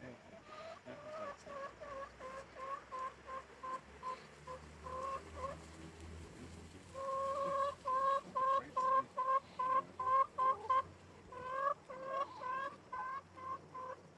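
Chickens clucking: a run of short, repeated clucks about two a second, growing louder and busier from about seven seconds in.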